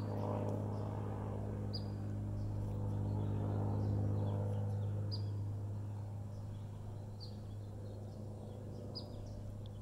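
A steady low hum with a buzzy row of overtones swells slightly and then eases, while small birds give short chirps every second or so.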